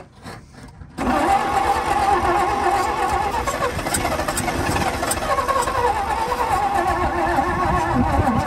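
Old 1954 Dodge truck engine catches about a second in and runs steadily. It is running only on gasoline poured down the carburetor, because fuel is not yet reaching the carburetor from the tank.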